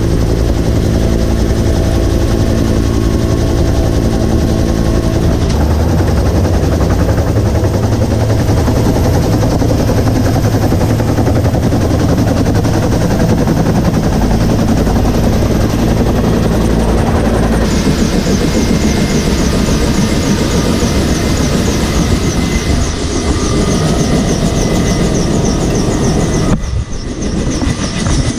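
Vietnam-era helicopter running, a loud steady drone of rotor and engine with heavy low rumble. About two-thirds of the way through the sound changes abruptly and a fast, high ticking joins it, and near the end it dips briefly.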